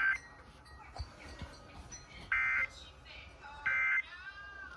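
Two short warbling bursts of Emergency Alert System SAME digital code, each about a third of a second long and about 1.3 s apart: the end-of-message data bursts that close a NOAA Weather Radio warning. A faint swooping tone follows near the end.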